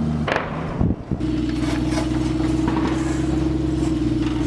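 Jackal 2 armoured vehicle's diesel engine running as the vehicle drives, a steady drone with a humming tone. There are a couple of knocks in the first second. About a second in, it changes to a steadier, higher hum.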